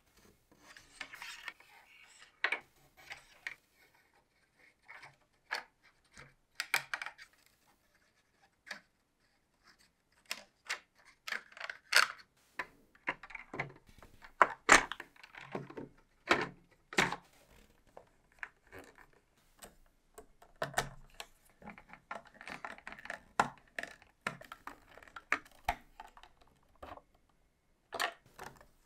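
Irregular clicks, taps and knocks of small hard plastic parts being handled and fitted together while a clear plastic scale-model boxer engine kit is assembled, with short stretches of light scraping and rattling between quiet gaps.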